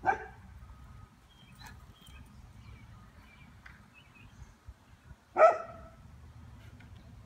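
Dog barking: two single loud barks, about five seconds apart.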